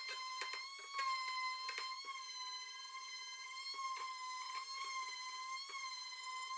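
Electric palm sander running on wood with 120-grit sandpaper: a steady, high motor whine whose pitch wavers slightly as it is pressed into the work. Irregular short knocks come from the pad scuffing against the box's edges.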